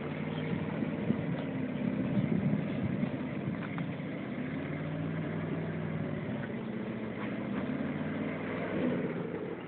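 Engine of a 1946 Ford 'Burma jeep' truck running steadily, its pitch dipping and rising a little.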